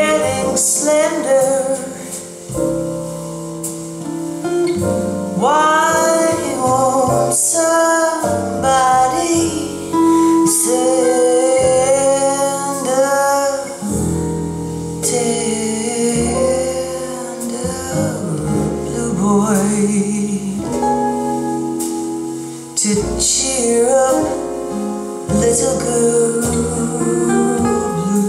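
A recorded female jazz vocal with instrumental backing, played back through Vienna Acoustics Mozart Grand floor-standing loudspeakers and heard in the room.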